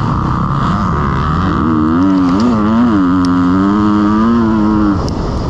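Motocross bike engine revving hard, its pitch swinging up and down as the throttle is worked, then holding steady before the tone breaks off near the end.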